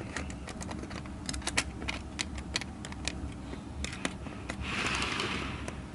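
Small plastic clicks and taps as an HO scale model boxcar is handled onto the track, its wheels and coupler knocking against the rails and the next car, with a short rustling scrape about three-quarters of the way through.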